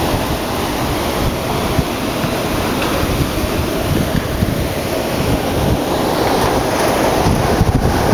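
Hurricane-force wind blowing hard and buffeting the microphone: a continuous heavy rush of noise with a deep, unsteady rumble underneath.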